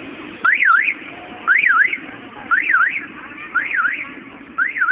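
An electronic alarm-style warble sounding five times, about once a second, each a quick rising-falling-rising whistle.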